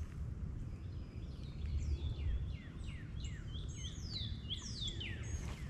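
A songbird singing a quick run of short down-slurred whistles, beginning about a second and a half in and stopping just before the end, over a steady low rumble.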